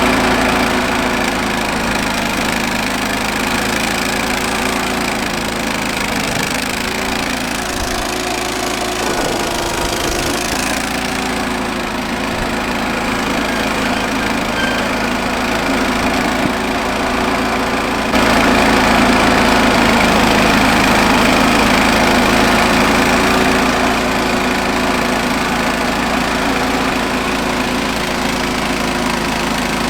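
John Deere garden tractor engine running steadily, getting louder about two-thirds of the way through.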